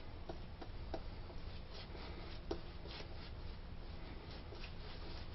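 Shaving brush working a lather of Master shaving soap on the face: a steady bristly rubbing with scattered small wet crackles.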